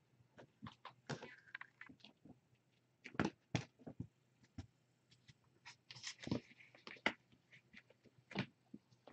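Kittens moving and playing: scattered light taps, knocks and rustles, a few of them louder, with a brief rustle about six seconds in.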